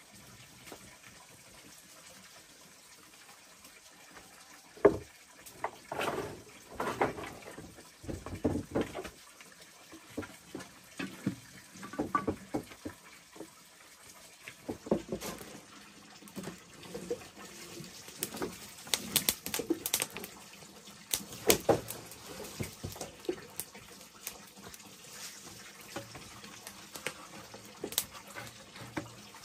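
Handling noises around a wood-fire hearth: a sharp knock about five seconds in, then irregular clatter and rustling, followed by sharp snaps and crackles as kindling is laid and lit under a large wok.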